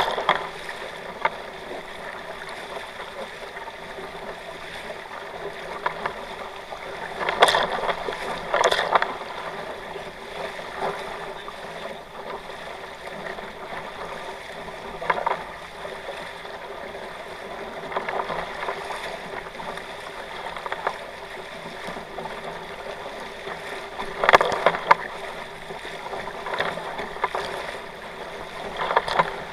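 Water rushing steadily along the hulls of a kayak catamaran under sail, with a few short, louder splashes of waves against the hulls.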